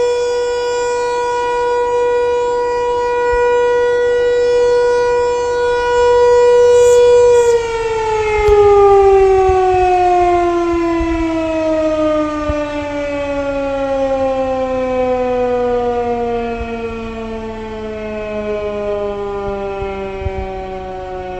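American Signal T-128 outdoor warning siren sounding a steady tone during its weekly test. About seven seconds in, the tone starts to fall and keeps sliding slowly lower as the siren winds down.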